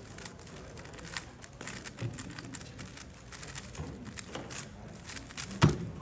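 Fast, irregular clicking of a GAN 13 Maglev 3x3 speedcube being turned in a speed solve, with one sharp, loud slap near the end as the hands come down on the stackmat timer to stop it.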